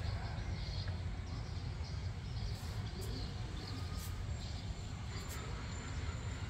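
Steady low background rumble, with a few faint short clicks and rustles around the middle.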